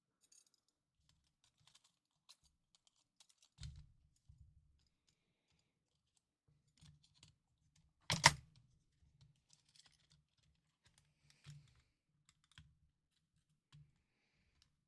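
Scattered faint clicks and taps of small handheld-console parts being handled during disassembly, with one sharper, louder click about eight seconds in.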